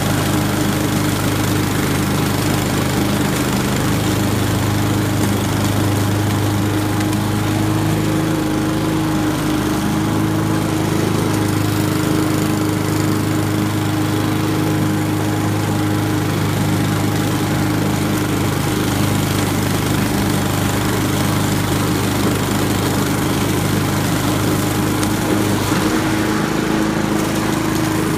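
Honda walk-behind lawn mower's engine running at a steady pitch as the mower is pushed across the lawn, cutting grass and leaves.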